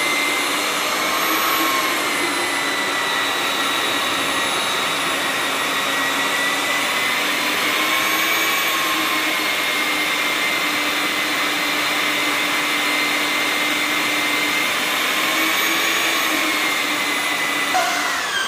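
Electric diamond core drill on a rig stand, running steadily as it wet-bores into a concrete floor. Its motor whine wavers slightly in pitch as the bit cuts, then dips sharply right at the end.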